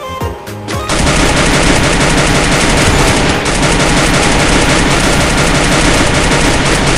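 Rapid automatic gunfire, a few separate shots at first, then a dense, loud, continuous burst from about a second in.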